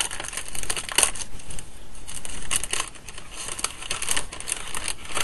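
Clear plastic packaging crinkling and rustling in irregular bursts as hands pull the bag open and slide out a sheet of rubber stamps.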